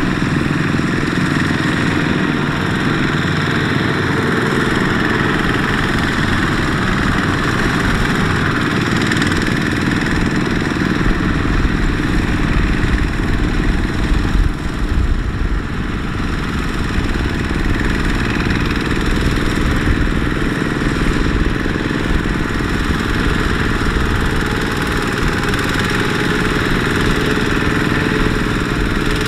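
Single-cylinder diesel engine of a Kubota ZT155 two-wheel walking tractor running steadily under load, hauling a laden trailer through mud, with a fast low chugging.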